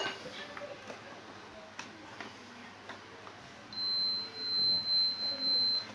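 Multimeter continuity buzzer giving a steady high beep for about two seconds near the end, its level wavering, with a few faint clicks before it as the probes touch: it signals that the conductor of the vacuum cleaner's power cable under test is intact.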